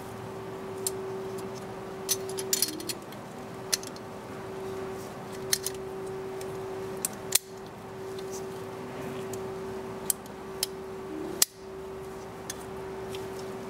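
Chrome-plated metal dental lab articulator being handled as its upper and lower frames are fitted together: about a dozen scattered sharp metal clicks and clinks, two of them louder, over a steady hum.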